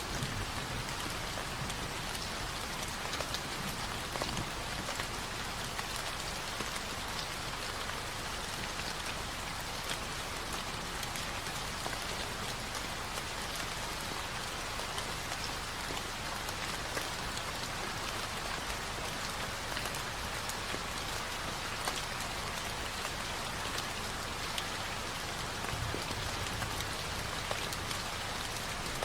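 Steady rain falling, an even hiss with scattered drop ticks, from a rain ambience recording.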